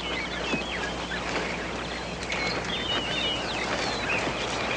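Birds chirping, many short quick calls sliding up and down in pitch, over a steady background hiss.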